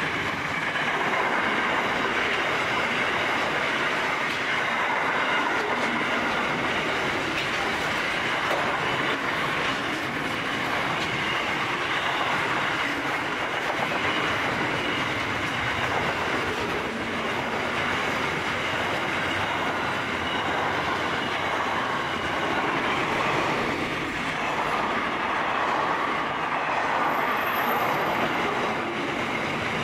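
Freight train wagons rolling past, a steady noise of steel wheels running on the rails that neither builds nor fades.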